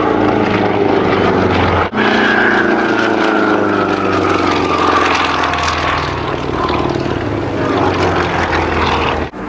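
Piston-engined aerobatic propeller aircraft flying past at a display, its engine and propeller note falling in pitch over a few seconds as it passes. The sound drops out very briefly about two seconds in and again near the end.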